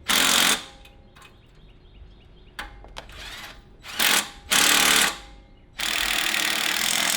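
Electric welder arc crackling in four bursts of tack welding on the steel exhaust pipe: three short ones, then a longer one of about two seconds near the end.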